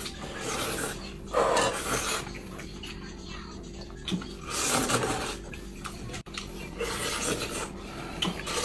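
A man loudly slurping noodles in bursts, the loudest about a second and a half in and again around five seconds, with chopsticks clicking against a large metal pot.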